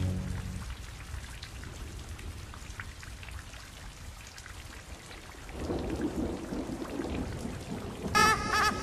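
Steady rain falling, with a low rumble of thunder building from about midway. Near the end, a quick run of short squeaky chirps begins.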